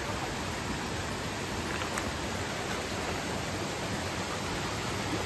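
Mountain creek running over rocks: a steady rush of water, with one faint click about two seconds in.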